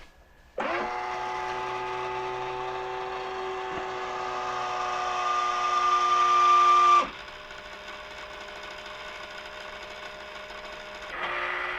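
Omnibot 2000's small electric gear motors whirring as the robot powers on and runs its reset. The whir grows louder for about six seconds, drops abruptly to a quieter, steadier hum, then changes again near the end.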